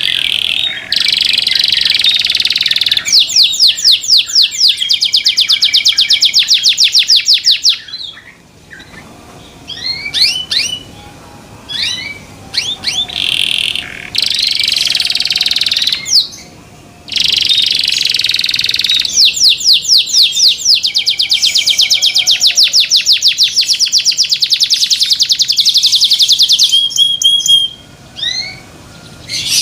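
Domestic canary singing: long, loud phrases of fast rolling trills mixed with quick chirps, broken by short pauses about a third of the way in and a little past halfway.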